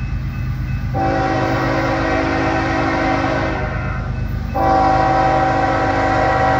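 Diesel locomotive horn sounding a chord of several notes in two long blasts, the first starting about a second in and the second after a short gap about three and a half seconds later, over the steady low rumble of the approaching locomotive's engine.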